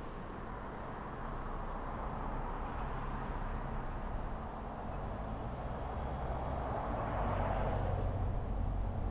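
Steady road noise of a car, swelling louder about seven seconds in.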